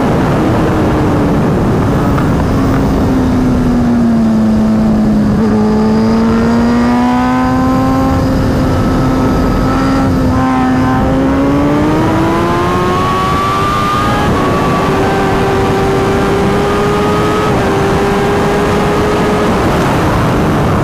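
Inline-four superbike engine at speed on track, heard onboard over heavy wind rush. Its pitch sinks and then climbs again as the rider rolls off and gets back on the throttle.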